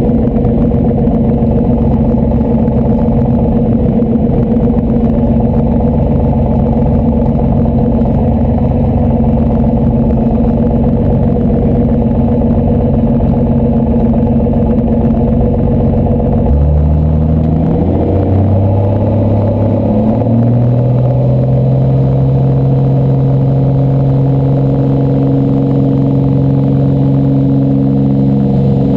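Slingsby T-67 Firefly's piston engine and propeller running at low power as the plane taxis. About two-thirds of the way through, the engine note rises in a couple of steps to a higher, steady pitch as the power is brought up.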